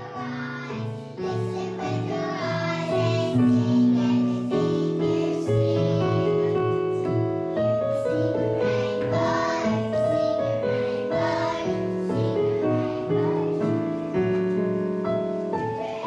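A group of young children singing together to an electronic keyboard accompaniment.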